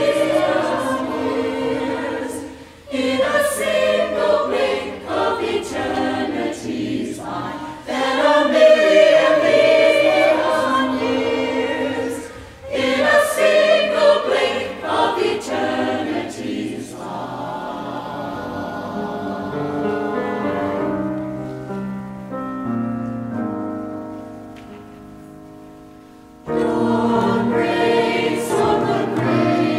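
A choir singing with accompaniment. About halfway through, the voices give way to a quieter passage of held notes that fades away; the choir comes back in near the end.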